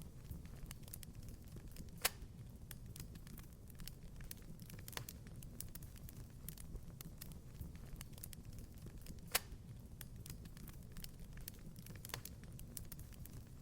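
Wood fire crackling in a fireplace: frequent small crackles over a steady low rumble, with two louder pops about two seconds in and a little past nine seconds.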